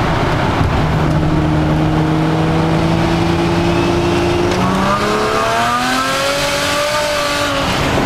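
Turbocharged 2002 Nissan Maxima V6 held at a steady drone while brake-boosting at about 40 mph: throttle open against the brake to build boost. About halfway through, its pitch climbs more steeply as the car accelerates.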